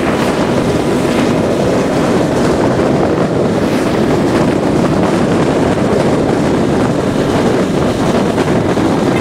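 Steady wind noise buffeting the camera microphone on a small motorcycle riding along an open road, with the bike's running and tyre noise blended into it.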